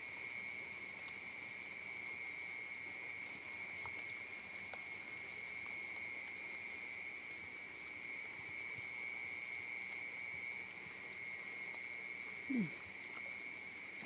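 Steady night chorus of calling insects and frogs, heard as one continuous high-pitched trill, with a single short downward-sliding call near the end.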